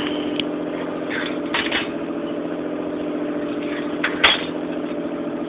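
Pump-pressurized Peak liquid-fuel camp stove burning with a steady hum. There is a short knock about four seconds in as the stove is picked up.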